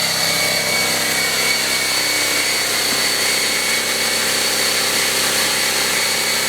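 Fortress 27-gallon air compressor running steadily while it refills its tank, heard from about 15 feet away: an even mechanical hum with a thin, steady high whine over it.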